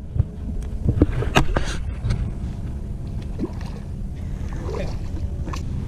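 Water slapping and lapping against a small boat's hull over a steady low rumble. Sharp knocks come at irregular intervals, the strongest about a second and a half in.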